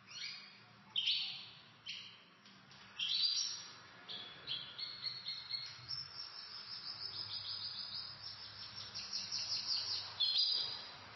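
Domestic canaries singing: short chirps for the first few seconds, then a long rapid trill of repeated notes from about halfway that grows louder before breaking off near the end.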